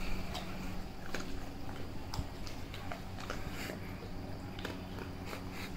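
Black Labrador crunching a bone-shaped dog biscuit: irregular crisp crunches, over a steady low hum.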